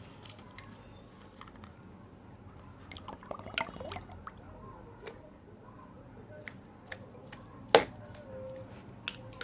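Oil being poured into a measuring container: faint trickling and dripping. A single sharp click comes near the end.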